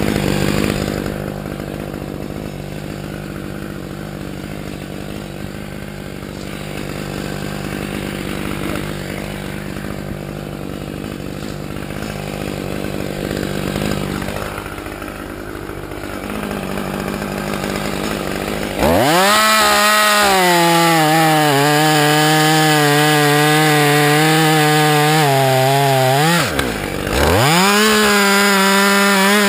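Husqvarna T540xp two-stroke top-handle chainsaw idling steadily, then about two-thirds of the way through revved to full throttle and cutting into a felled cherry log, its pitch sagging and wavering under load. Near the end it drops off briefly and then goes back to full speed.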